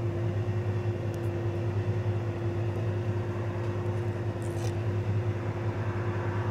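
Loaded semi truck's diesel engine idling steadily: an even low hum with a constant higher tone. A brief faint high scrape comes about two-thirds of the way in as the flip phone is handled.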